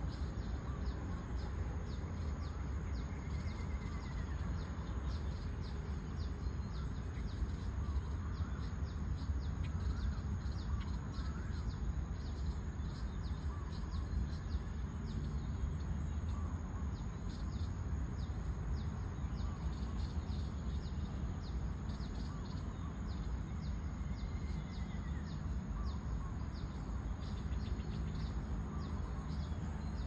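Outdoor dawn ambience: scattered bird calls and chirps, with a couple of clear falling calls, over a steady low rumble and a thin, constant high-pitched drone with faint ticking.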